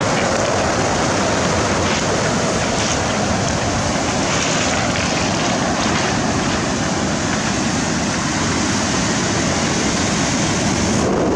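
Steady rush of sea surf breaking, with wind rumbling on the microphone.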